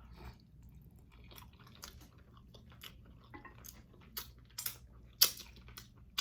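A person chewing spicy chicken wings close to the microphone, a string of short wet smacks and crackles, the loudest about five seconds in.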